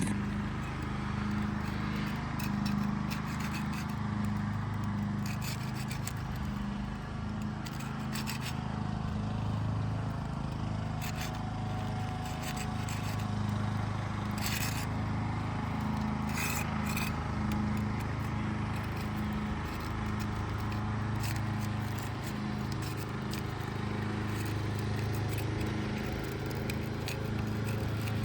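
A thin trowel tool scraping and prying under asphalt shingles, working loose the adhesive seal between the layers in scattered short scrapes and clicks. A steady low hum runs underneath.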